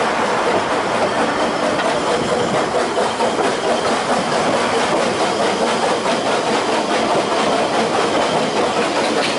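Ffestiniog Railway narrow-gauge train running along the line: a steady, unbroken noise of the carriages and wheels on the rails.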